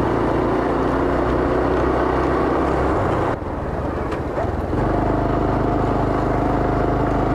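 Small single-cylinder four-stroke motorcycle engine running steadily while riding, with wind noise. There is a brief drop about three and a half seconds in, then the steady running resumes.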